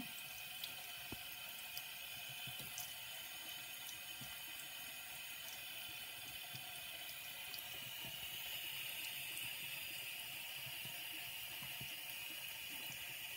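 Bathroom faucet running a thin steady stream of water into cupped hands and the sink basin: a steady hiss, slightly louder from about eight seconds in, with a few faint ticks.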